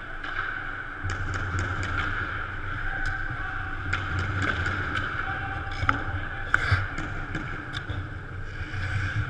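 Indoor ice hockey arena during play: a steady hum of the rink's machinery under scattered sharp clacks of sticks and puck, with a couple of louder scraping clacks about six to seven seconds in, as skates and sticks come near.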